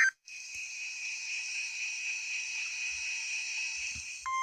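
NOAA Weather Radio receiver hissing with static through its small speaker between broadcasts. Near the end a steady 1050 Hz warning alarm tone switches on abruptly, marking the start of a new alert.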